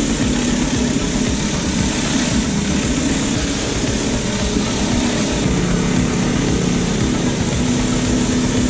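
Pressure washer's engine running steadily under the hiss of the high-pressure water spray on paving.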